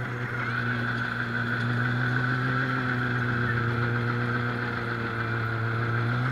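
Snowmobile engine running at a steady speed, heard from on board the moving machine, its pitch holding constant.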